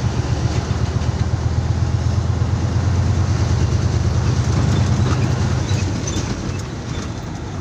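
Container truck's diesel engine running steadily under way, heard from inside the cab as a strong low drone with road noise, easing slightly near the end.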